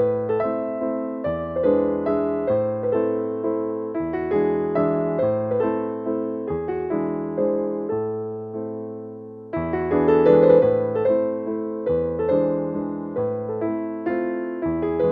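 Background piano music: slow, gentle chords, each struck and left to fade, with a short break about nine seconds in.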